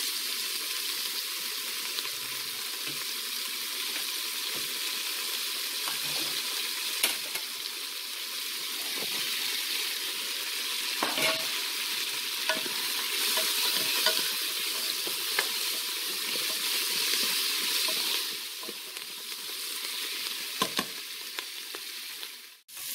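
Sliced onions, ginger and garlic sizzling in hot coconut oil in an electric pressure cooker's pot: a steady frying hiss, with a few light clicks along the way.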